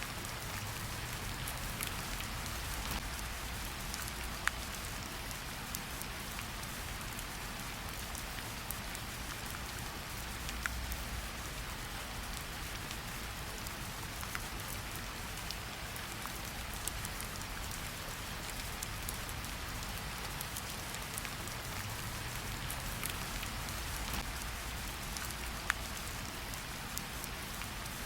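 Steady rain falling, an even hiss full of small drop ticks, with a soft low rumble underneath. Three sharper pops stand out, one near the start, one in the middle and one near the end.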